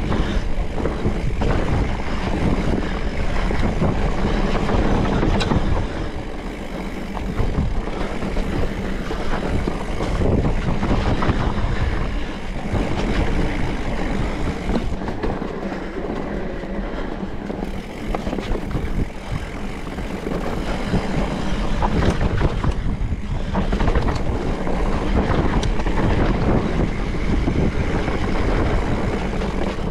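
Specialized Turbo Levo electric mountain bike ridden over a rough dirt trail: tyres rumbling and the bike rattling over bumps, a steady noisy rumble with many small knocks throughout.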